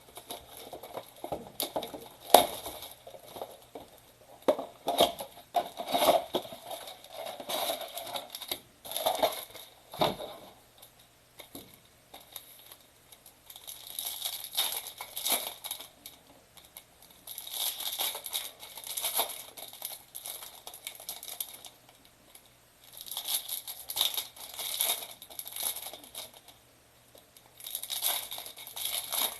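Trading-card boxes and foil card-pack wrappers being torn open and crinkled by hand: handling clicks and rips at first, then several crackling bursts a few seconds apart. A faint steady hum lies underneath.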